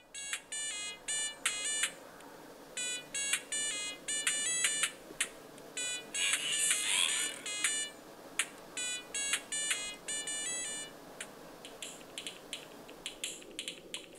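High-pitched electronic beeps from a mobile phone, coming in quick runs of short tones that step up and down in pitch, with pauses between the runs. A brief rustle comes about six to seven seconds in.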